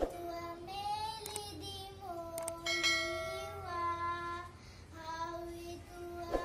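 A young girl singing a song unaccompanied, holding long notes that glide between pitches.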